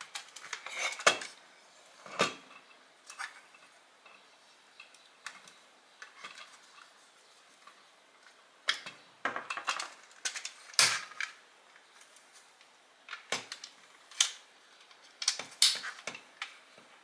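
Hard parts of a Dyson soft roller cleaner head being handled: irregular clicks, clinks and knocks of plastic and small metal pieces, with a few louder knocks spread through.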